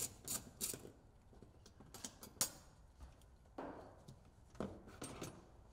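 A few faint clicks and light knocks from a hand ratchet with a T40 Torx socket backing out screws and from the plastic centre instrument panel being worked loose and lifted. The sharpest click comes about two and a half seconds in, with softer rustling knocks near the end.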